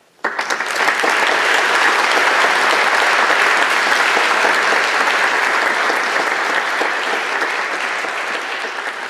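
Audience applause breaking out suddenly a moment in, a dense even clapping that holds steady and eases off slightly near the end.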